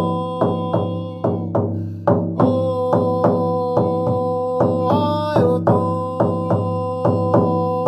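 Steady drum beat of about three strikes a second, under a long held pitched tone that slides up and back briefly about five seconds in.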